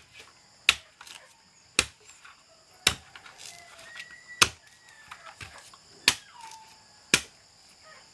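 Bolo knife chopping into the fibrous husk of a whole mature coconut, a sharp chop about every second, as the husk is hacked open to peel it.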